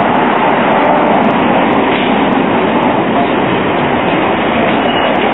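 Double-deck electric tram running along street track as it comes in to a stop: a loud, steady rolling rumble and rattle from the rails, mixed with city street noise.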